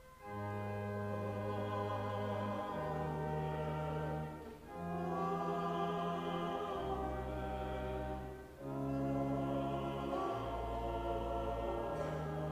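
Choir singing with organ accompaniment: slow, sustained chords over deep bass notes, in three phrases with short breaks between.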